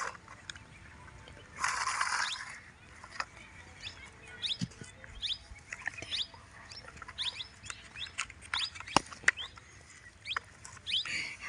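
Small birds chirping, short falling chirps a couple of times each second, with a few sharp clicks and a brief rustling noise about two seconds in.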